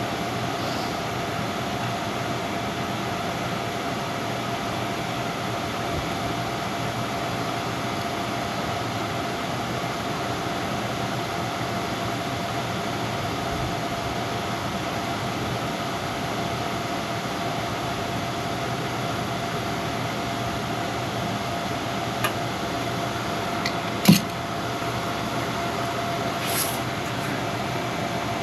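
Steady machine hum with a held tone, running evenly throughout. A couple of sharp knocks stand out near the end, the second the loudest.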